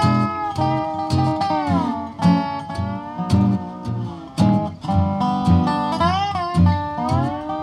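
Dobro (resonator guitar played lap-style with a steel bar) playing a country/bluegrass melody whose notes slide between pitches, with a downward slide about two seconds in and a wavering vibrato near the end. An acoustic guitar keeps time underneath with steady bass notes and strums.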